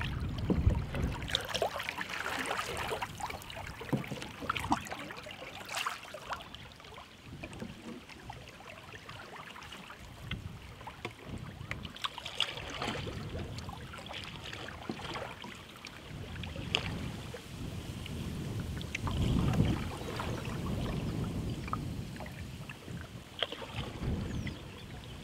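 Paddles dipping and pulling through the water beside a wooden canoe, with irregular small splashes, drips and knocks and water lapping at the hull. Low gusts of wind on the microphone come and go, near the start and again about two-thirds of the way through.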